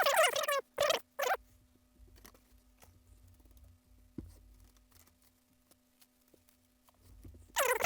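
Short squeaks of TV panel parts rubbing as they are handled: three near the start and one near the end, each falling in pitch, over a faint steady hum.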